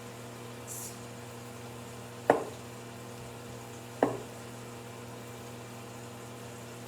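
Two sharp knocks of a knife chopping through sweet potato onto a cutting board, a little under two seconds apart, over a steady hum.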